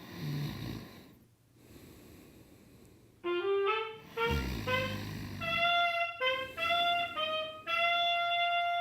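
Music: a short melody played on a wind instrument, a run of separate notes that ends on one long held note.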